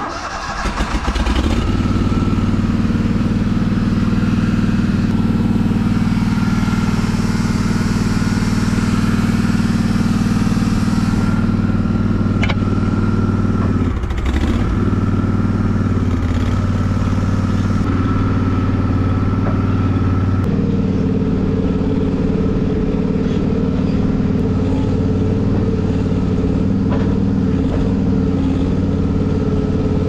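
Engine of an AGI auger starting up and running steadily at throttle, driving the auger that moves the fertilizer blend. Its note shifts about two-thirds of the way through.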